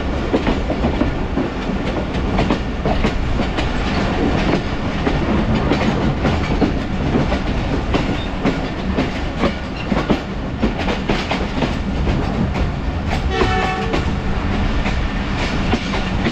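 Passenger train coach running at speed, heard from its open side: a steady rumble and rush of wind with the wheels clicking over rail joints. A brief horn note sounds about 13 seconds in.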